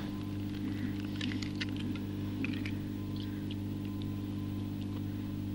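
Eggs being cracked and separated by hand over a copper bowl: scattered faint light clicks and taps of eggshell, over a steady low hum.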